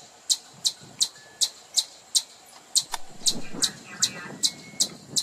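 Eastern chipmunk giving its chip call: short, sharp, high-pitched chips repeated evenly at about three a second, the species' typical alarm call.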